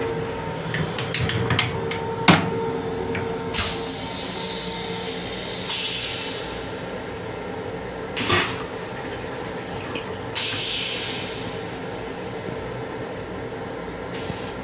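Long Island Rail Road M7 restroom toilet being flushed over the steady rumble of the moving train: clicks and one sharp bang about two seconds in as the seat goes up, then a rush of flushing water and air about six seconds in, a thump, and a second rush about ten seconds in that fades away.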